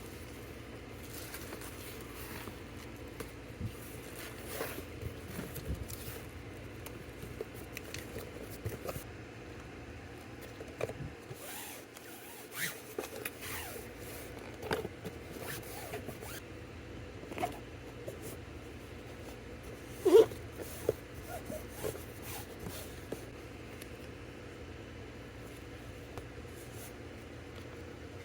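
Hands packing small stationery orders: scattered rustles and zip-like scrapes of packaging, with light taps and clicks and one sharp louder click about twenty seconds in.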